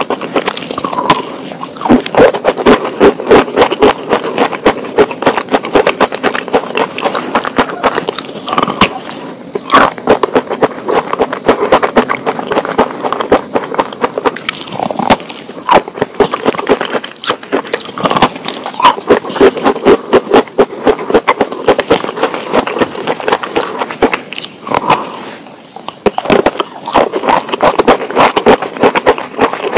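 Close-up crunching and chewing of a thin, brittle, dry sheet of food: rapid crackling and snapping bites with a few short pauses.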